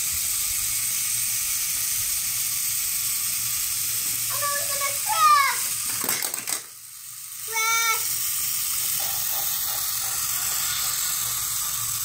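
Fisher-Price GeoTrax remote-control toy train set with a steady hissing sound effect. About six seconds in, the toy's bridge piece goes off in its 'explosion': a short clatter of plastic pieces, after which the hiss drops out briefly. Short high voice calls come just before the crash and again just after it.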